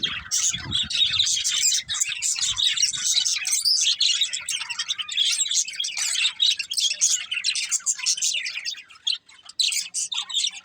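Budgerigars chirping and chattering continuously in rapid, overlapping high calls, with a brief lull about nine seconds in.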